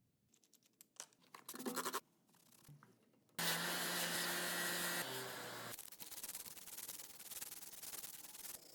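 Restoration bench work on metal parts: short stretches of rubbing, scraping and sanding that start and stop abruptly. The loudest stretch, in the middle, carries a steady low tone under the scrubbing noise.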